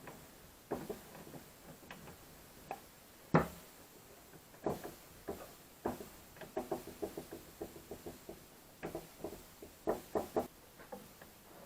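Irregular knocks and taps of wooden workpieces being handled and set down on a workbench. The loudest is a sharp knock about three seconds in, and a quick run of lighter taps comes around the middle.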